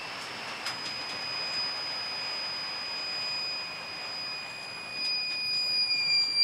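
A UPS's alarm buzzer sounding one steady high-pitched tone over a hiss, dipping slightly in pitch near the end, as the faulty unit struggles to keep a 100-watt incandescent bulb powered.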